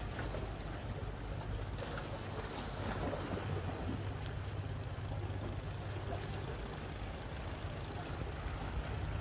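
A boat's engine running with a steady low hum, under wind and water noise.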